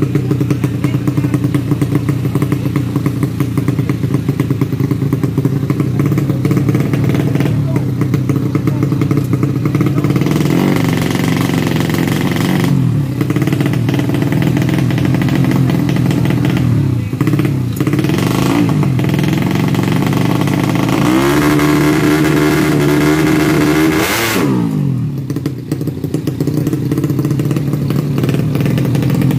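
Tuned four-stroke underbone drag-bike engine running at a fast idle with repeated throttle blips. Its pitch rises and falls several times, and a long climb near the end cuts off sharply.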